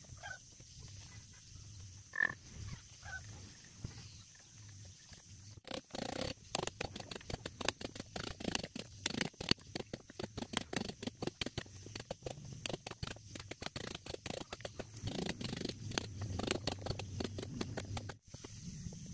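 Claw hammer striking a steel chisel in quick repeated taps, several a second, as it cuts a notch into a wooden boat keel timber. The taps start about six seconds in and cut off abruptly near the end; before them there are only scattered light knocks.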